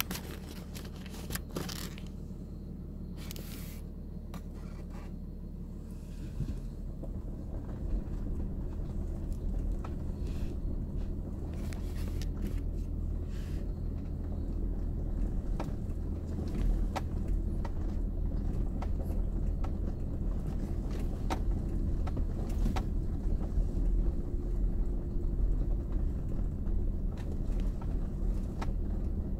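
Kia Mohave SUV driven slowly over a rough, rutted dirt trail, heard from inside the cabin as a steady low rumble of engine, tyres and suspension. Scattered light clicks and knocks sound over it. The rumble grows louder about six seconds in.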